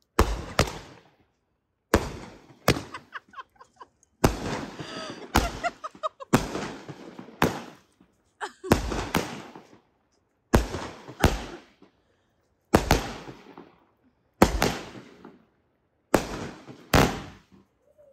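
Consumer fireworks going off in a steady series, about nine pairs of sharp bangs, a pair roughly every two seconds, each bang fading out over about a second.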